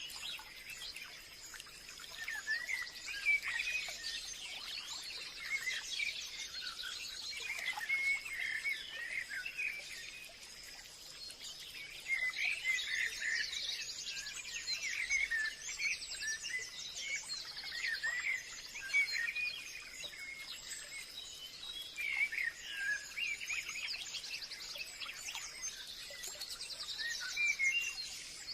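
Forest ambience: many birds chirping and calling at once, over a thin steady high-pitched drone.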